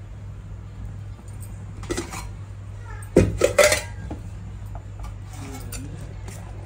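Metal kitchen utensils and cookware clinking, a few sharp knocks about three seconds in, over a steady low hum.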